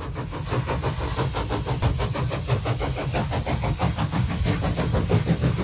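Pickup truck driving, heard from inside the cab: steady engine and road noise with a fast, even pulsing.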